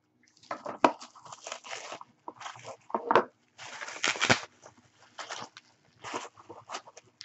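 Clear plastic packaging crinkling and rustling in irregular bursts as it is pulled from a small cardboard box and unwrapped by hand, with a couple of sharp crackles.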